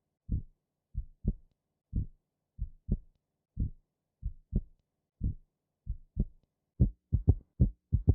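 Heart sounds with an added third heart sound (S3): each lub-dub is followed by a soft, low extra beat in early diastole, the 'Kentucky' ventricular gallop rhythm, caused by rapid filling of the ventricles. The beats come slowly at first and speed up to a real-time rate about seven seconds in.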